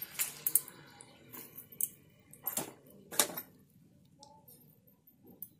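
Slotted metal spatula clinking and knocking against a metal kadai while fried koi fish are laid into the gravy, a string of irregular sharp clinks.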